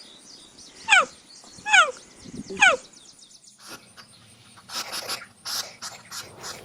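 An animal's calls: three short, sharp yelps, each sliding quickly down in pitch, about a second apart, then a run of short hoarse, noisy calls in the second half.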